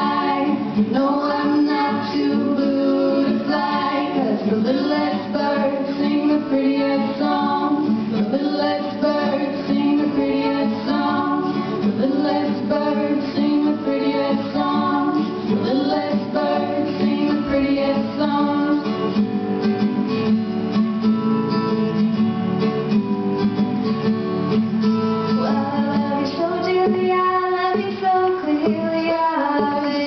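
Women singing a song to an acoustic guitar accompaniment.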